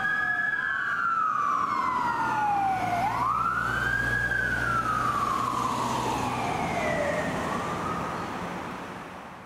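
Fire engine siren on a 2018 E-One pumper responding: a wail that winds up quickly and then coasts down slowly, twice, like a mechanical siren, with fainter siren sweeps and a diesel engine rumble underneath. It fades near the end as the truck pulls away.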